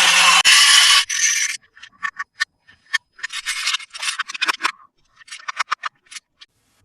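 Toy packaging being handled: a loud steady rubbing or tearing that stops about a second and a half in, then scattered small clicks and crinkles.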